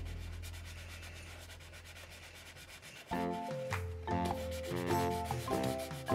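Crayon rubbing back and forth on coloring-book paper in repeated scratchy strokes. Quiet background music with a melody comes in about three seconds in.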